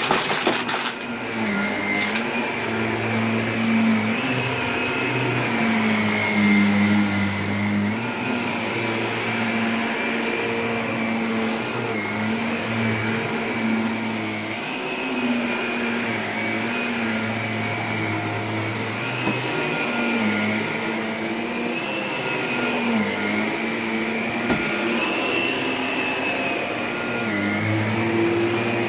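Upright vacuum cleaner running on carpet, a steady motor hum whose pitch rises and falls slightly throughout. A few sharp clicks come near the start.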